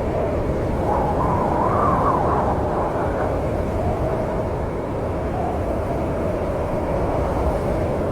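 Snowstorm wind blowing steadily, a low rushing with a faint howling tone that swells and wavers about one to two and a half seconds in.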